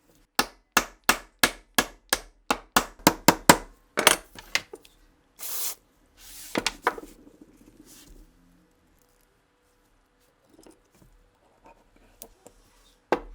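A quick series of about a dozen sharp metal clicks or taps, speeding up, then a heavier knock with a short ring. Two brief hisses follow, then a few scattered faint clicks and one sharp click near the end.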